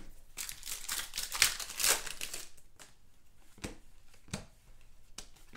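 Foil wrappers of Donruss Optic basketball card packs crinkling as they are handled, then four light clicks as trading cards are flicked through in the hand.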